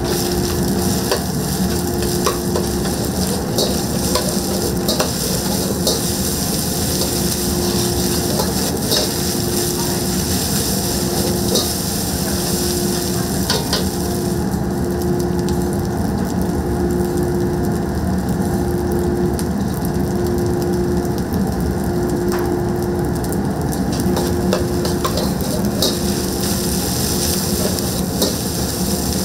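Egg fried rice being stir-fried in a wok: steady sizzling, with frequent short clicks of the metal ladle striking and scraping the wok, over a steady low hum.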